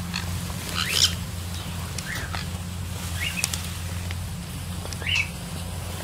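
Four short rising animal calls, about a second or more apart, the first the loudest, over a steady low hum.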